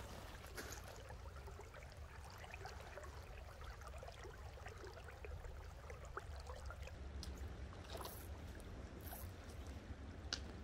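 Shallow creek water trickling faintly over gravel, under a steady low rumble, with a few light clicks in the last few seconds.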